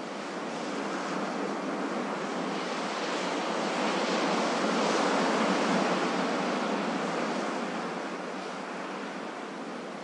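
Ocean waves breaking on a beach: a steady wash of surf that swells to a peak about halfway through and eases off again near the end.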